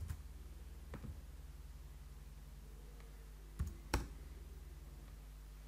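A few isolated computer keyboard keystrokes, about a second apart at first and then two in quick succession near the end, over a steady low hum.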